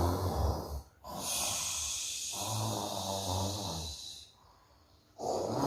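A woman snoring: low rumbling snores alternating with a long hissing puff of breath blown out, the "ghur ghur" and puffing kind of snore.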